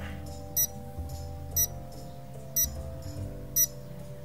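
Countdown timer sound effect: a short high-pitched beep once a second, four times, over soft background music with long held notes.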